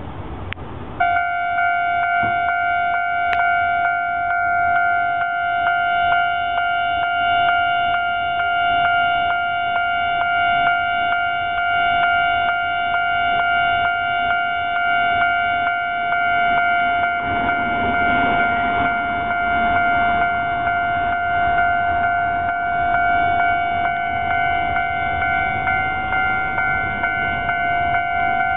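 Japanese railway level-crossing warning bell starting about a second in, ringing in a rapid, even repeat. A train rushes past through the crossing about 17 to 20 seconds in.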